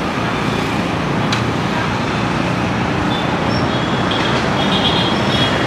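Steady city road traffic noise, a constant wash of engines and tyres, with a sharp click about a second in and a few brief high-pitched chirps near the end.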